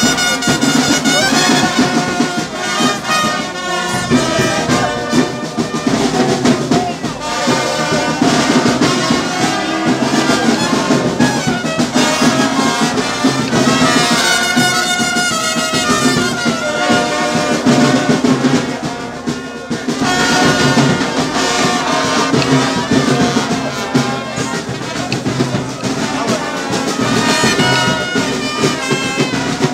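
A marching brass band of trumpets, trombones and larger horns playing a tune together.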